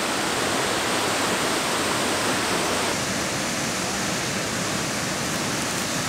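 Waterfall, a steady rush of falling water; the sound shifts slightly about halfway through.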